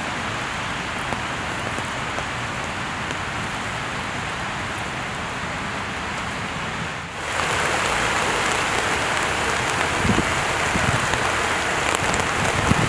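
Steady rain falling on a flooded road. About seven seconds in the sound jumps louder and brighter to floodwater rushing and churning over a curb, with a few low bumps near the end.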